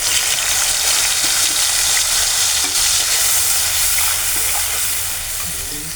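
Freshly ground onion, tomato and green chilli paste sizzling loudly in hot oil in a pan, a steady hiss that eases a little near the end.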